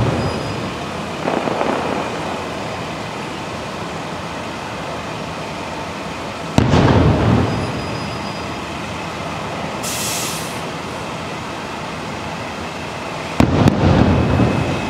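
Fireworks show shells bursting: two sudden booms about seven seconds apart, each rumbling away over about a second, with a weaker one near the start and a brief high hiss in between, over a steady rumbling background.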